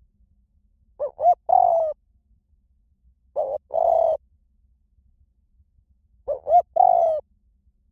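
Spotted dove cooing, a high-voiced bird. Three call phrases come roughly every two and a half seconds, each one or two short notes followed by a longer coo.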